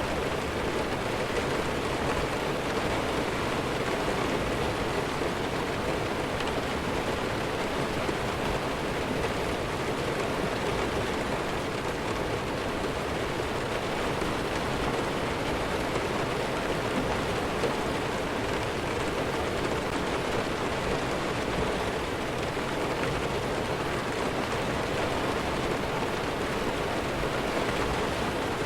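Steady heavy rain falling: an even, unbroken hiss with no thunder.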